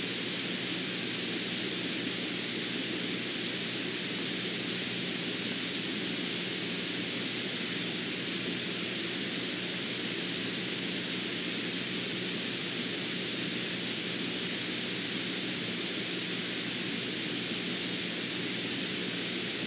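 Steady hiss of an old tape recording, with a low steady hum underneath and faint scattered crackle.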